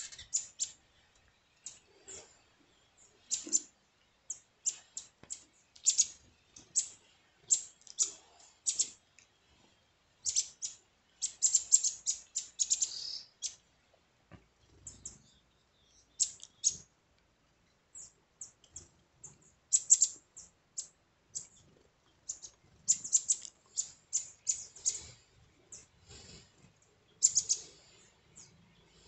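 Green-headed tanagers giving short, high chip calls, in irregular runs of several in quick succession broken by pauses of a second or two.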